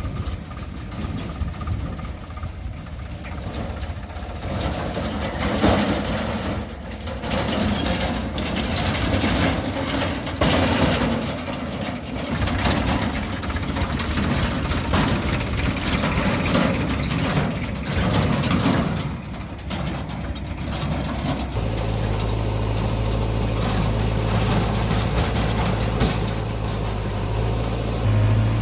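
Heavy diesel engine of a JCB 3DX backhoe loader working under load, with knocks and clatter while it digs and loads mud. About three quarters of the way through, it settles abruptly into a steady, even engine note.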